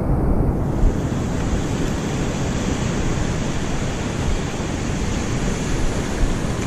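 Surf washing up a sandy beach, a steady noisy rush with wind buffeting the microphone; the hiss of the wash grows louder about a second in.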